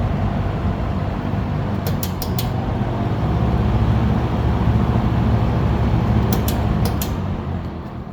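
Vintage McGraw-Edison Eskimo box fan running on low with its blades now held to the hub by screws and nuts: a steady motor hum and air rush. A few light clicks come twice, and the sound dies away near the end.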